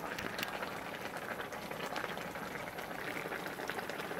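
Fish-and-tofu braise bubbling in a cast-iron wok: a steady crackle of small bubbles popping in the thick sauce.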